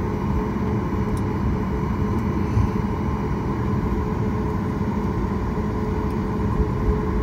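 Inside the cabin of a Boeing 737 MAX taxiing, its CFM LEAP-1B engines running at low thrust with a steady hum over the rumble of the wheels on the taxiway.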